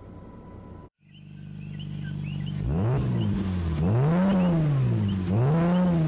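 After a brief silence, a car engine fades in idling, then is revved three times, each rev rising and falling in pitch.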